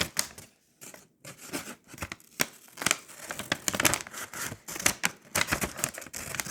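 Irregular crinkling, rustling and tearing of a bag's wrapping as it is handled and opened by hand.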